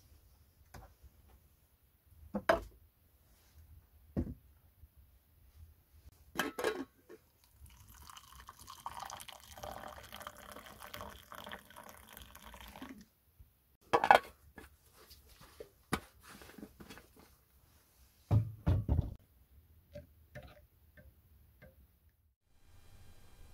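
Hot water poured from a steel thermos into a stainless steel mug for about five seconds, among scattered clinks and knocks of metal and a dull thump. Near the end a spoon stirs and clinks lightly in the mug.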